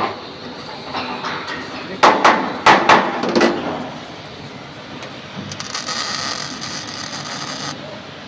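Hammer blows: about five sharp strikes in quick succession about two seconds in, followed later by a high hiss lasting about two seconds.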